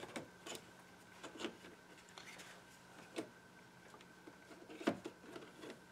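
Scattered faint plastic clicks and taps of a small OBD2 adapter being fitted into the diagnostic port under a Saab 9-5's dashboard, the sharpest about five seconds in, over a steady faint hum.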